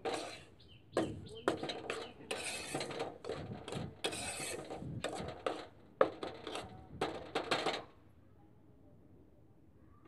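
Metal spatula scraping and stirring dry, granular roasted mustard oil cake around a frying pan in quick repeated strokes. The strokes stop about eight seconds in.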